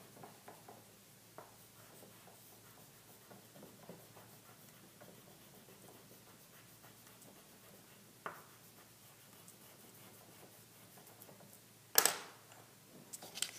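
Faint scratching of a stick of white chalk rubbed on black construction paper. About twelve seconds in, one sharp clack as the chalk stick is set down on the wooden desktop.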